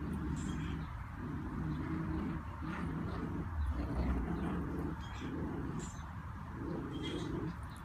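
Schnauzer growling playfully while tugging a rope toy: a steady run of low growls, about one a second.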